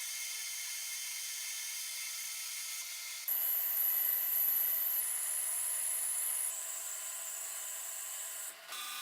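A small high-speed power tool running steadily, with a high whine. It gets louder and shifts in pitch abruptly about a third of the way in, and changes sharply again twice more before the end, like cuts between clips of the tool at work.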